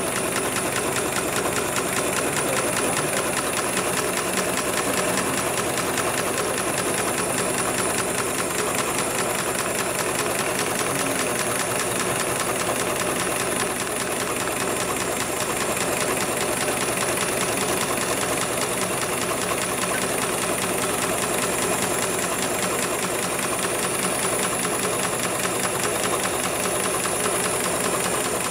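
HIGHTEX 7273 CNC automatic industrial sewing machine stitching continuously at high speed: a rapid, even needle rhythm with a thin high whine over it.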